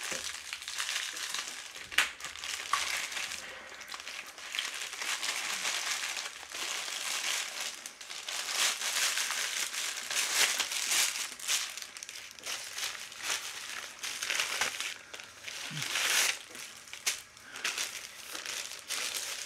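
Plastic mail satchel crinkling and rustling as it is handled, opened and crumpled by hand, with a sharp tap about two seconds in.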